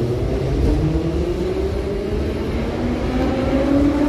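Ezh-3 (type Em508T) metro car running, heard from inside: a steady low rumble of the running gear, with a traction motor whine that rises slowly in pitch through the second half as the train gathers speed.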